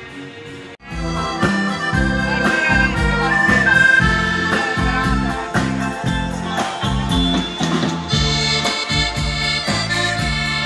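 Live ballo liscio dance band playing: an accordion carries the melody in held notes over electric bass and drums keeping a steady beat. The music cuts in abruptly about a second in.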